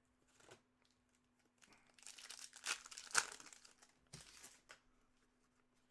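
Foil wrapper of a hockey card pack crinkling and tearing as it is opened, loudest in the middle, over a faint steady hum.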